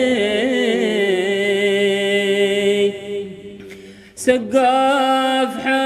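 Voice singing an Arabic devotional qasida in long, drawn-out wavering notes. The singing breaks off about three seconds in and resumes strongly about a second later.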